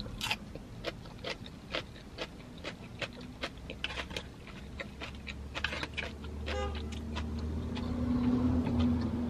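Close-up eating sounds: chewing, with many short, sharp clicks of a plastic fork against a foam takeout container. A low hum grows louder through the second half.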